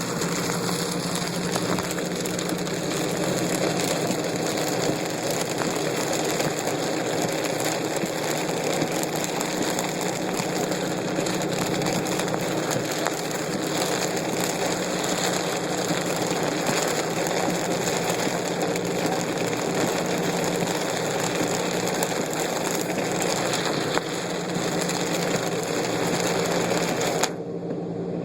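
Steady noise inside a car driving through heavy rain and flood water: a constant engine and road hum under an even wash of water and rain noise. The high end drops out briefly about a second before the end.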